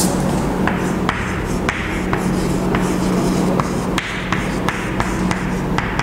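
Chalk writing on a blackboard: a series of short, sharp taps and scrapes, about two a second, as a word is written, over a steady low hum.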